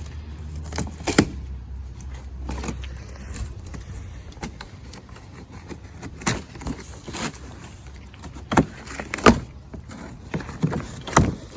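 Irregular knocks, scrapes and rustles of a large cardboard shipping box being pulled open, with a few sharper knocks about a second in, around nine seconds in and near the end.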